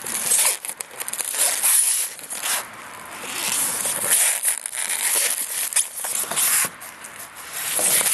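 Cardboard flaps and styrofoam packing rustling and scraping as hands shift things around inside a box, coming and going in uneven bouts.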